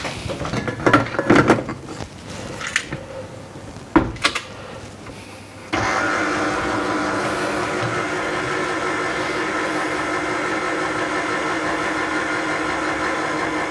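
A few knocks and clicks as the bowl is fitted, then about six seconds in a stand mixer (kneading machine) switches on and runs steadily at low speed, mixing bread-roll dough of flour, water, salt, yeast and oil.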